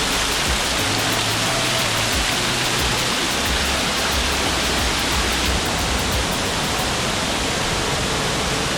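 Steady rushing of falling water from waterfall cascades.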